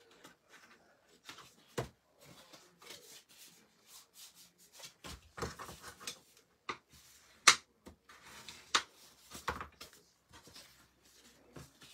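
Cardstock being handled on a wooden desk: soft rustling and sliding of paper, with scattered light taps and one sharper tap about seven and a half seconds in.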